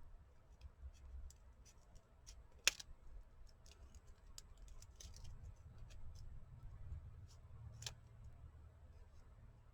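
Scissors snipping paper: scattered faint snips and clicks, two of them sharper, about a quarter of the way in and near the end.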